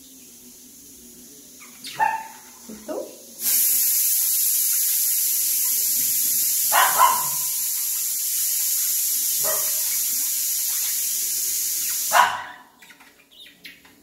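A dog barking about five times, short sharp barks a few seconds apart. A loud, steady rushing hiss, like running water, starts suddenly about three and a half seconds in and cuts off suddenly near the end.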